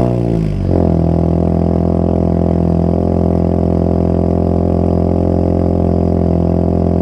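Honda Civic engine through a de-catted full-system exhaust with a single end-can muffler: the revs fall for about a second, then it settles into a steady idle.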